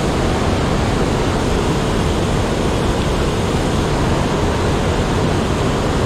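Mountain stream rushing over stones close to the microphone: a steady, loud rush of water.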